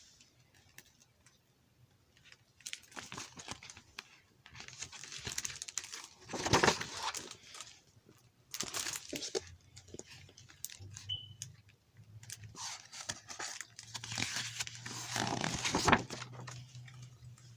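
Pages of a picture book being handled and turned: a string of rustling, crinkling paper swishes lasting a second or two each, with small taps and clicks between them.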